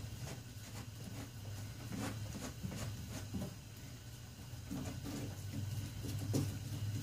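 Irregular soft taps and scrapes as a stick dabs and presses Bondo body filler into a crack in a golf cart's front body panel, over a steady low hum.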